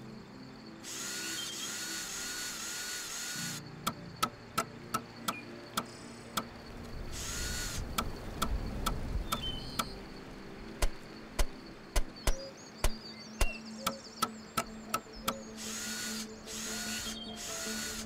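A cordless drill runs in bursts of one to three seconds, boring into a log. Between the bursts come two runs of sharp knocks, about three a second.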